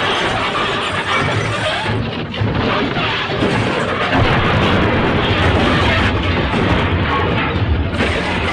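Edited crash sound effect: a loud, dense, continuous rumbling noise with no clear pauses.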